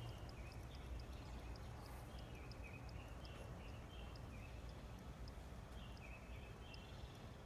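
Faint outdoor ambience: a steady low rumble, a fast high ticking that slows and thins out after the start, and repeated clusters of short chirps.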